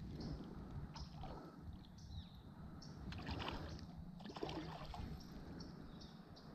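Small creek running over a shallow riffle, with a low rumble and scattered small clicks and knocks.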